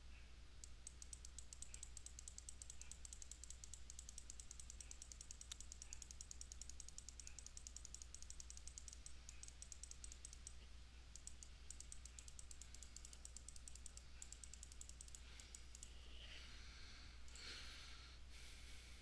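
Faint, rapid clicking from the computer input device as a circle is drawn freehand on screen, in two long runs with a short break between them, followed by a few soft brief rustles near the end.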